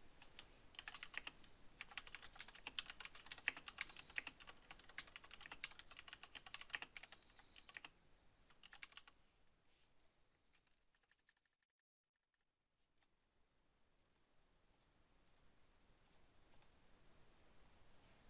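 Computer keyboard typing: a quick run of key clicks for about eight seconds, then near silence with a few faint clicks near the end.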